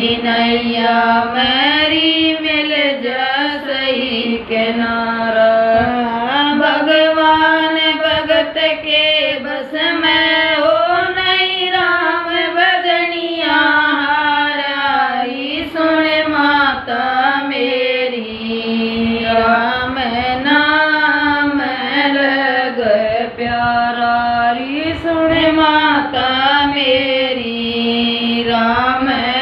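Two women singing a Hindi devotional bhajan, long held notes that bend up and down, with no instruments.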